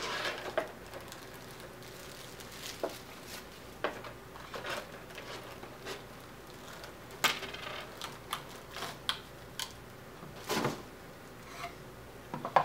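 Clear plastic packaging crinkling and crackling in short, scattered spells as a figure is unwrapped by hand. A sharp knock near the end as the figure is set down on a wooden table.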